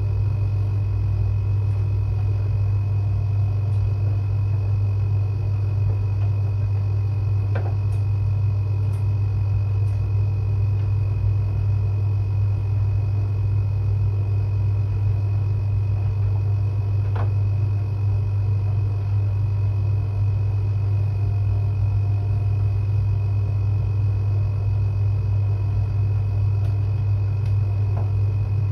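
Washing machine running through its Quick 30 cycle with a loud, steady low hum and a faint high whine over it, and a couple of faint ticks.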